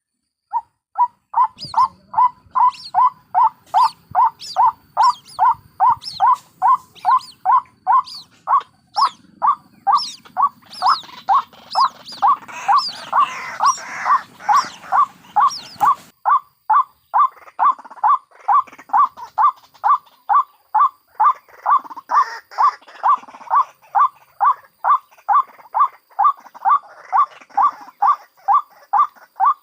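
White-breasted waterhen (ruak-ruak) calling: a long run of harsh, evenly repeated notes, about two or three a second, starting just after a brief silence. Somewhat before the middle, higher calls and background hiss join in and then cut off abruptly.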